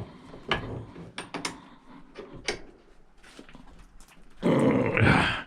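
Light metal clicks and knocks of a brass fitting and hand tools being handled, then, near the end, about a second of a loud rough sound.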